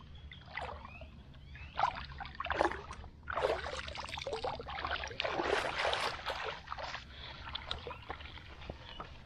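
Kayak paddle dipping and splashing in the lake water in several uneven strokes, with water trickling and dripping off the blade.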